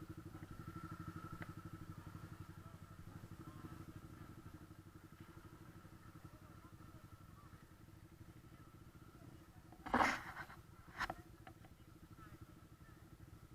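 Motorcycle engine running with an even low pulse that eases off over the first few seconds. Two short, loud bursts of noise come about ten and eleven seconds in.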